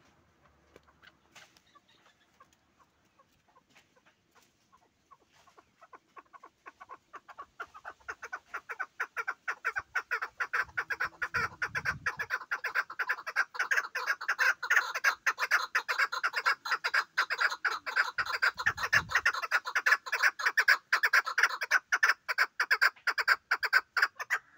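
Chukar partridge calling: a long, fast series of clucking 'chuk' notes that starts faint about six seconds in, grows steadily louder, and carries on loud and rapid.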